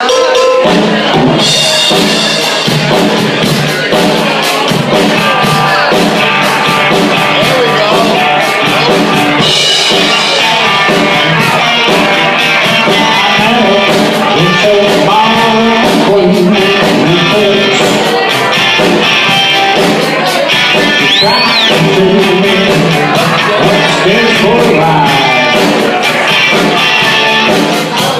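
Band music with electric guitar and singing, loud and steady throughout.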